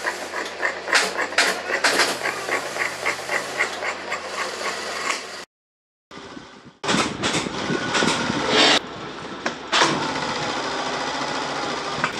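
Large shears snipping through upholstery material, with a quick run of clicking snips. After a brief break, sheets of leatherette rustle and an industrial sewing machine runs steadily.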